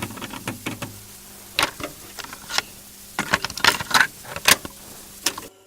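Irregular sharp clicks and knocks, some in quick rattling clusters, over a faint steady hum.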